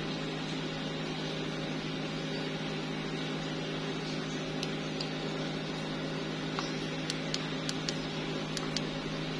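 Steady machine hum with a low drone of a few fixed pitches, like a fan or air conditioner running. A few light clicks about seven to nine seconds in, from the clear plastic lighter being handled.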